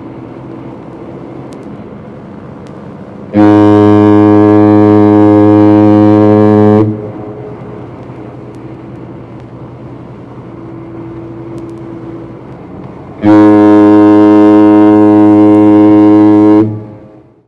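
Ship's foghorn sounding two long, deep blasts of about three and a half seconds each, some six seconds apart, over a steady low rumble: a ship's warning signal in fog.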